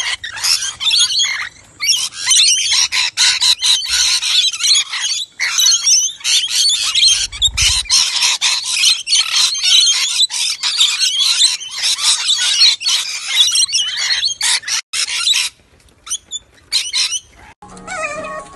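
A flock of rainbow lorikeets screeching and chattering all at once while feeding, a dense unbroken mass of shrill calls that stops suddenly about fifteen seconds in, with a few stray calls after.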